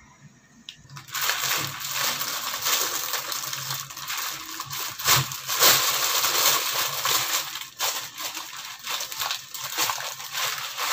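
Thin plastic carrier bag crinkling and rustling as it is handled and pulled open, starting about a second in and going on in irregular crackles.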